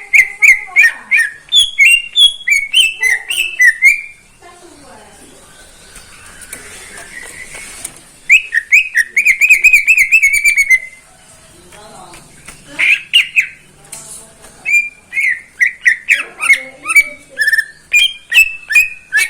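Green leafbird (cucak ijo) singing loudly in bursts of quick, varied whistled notes, with a fast warbling trill about halfway through and short pauses between phrases.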